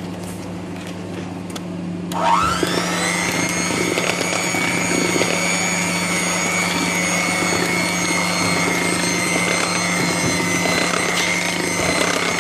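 Electric hand mixer switched on about two seconds in: its motor whine rises quickly, then holds steady as the twin beaters mix flour into chocolate cake batter.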